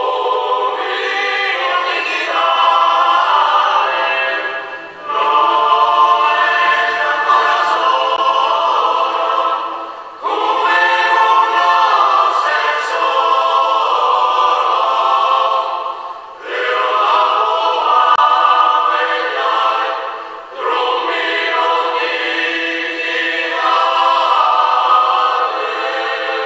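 Men's choir singing a slow sacred song a cappella, in long phrases broken by brief pauses for breath about every five seconds. The sound is thin and lacks bass, as if played back through a small speaker.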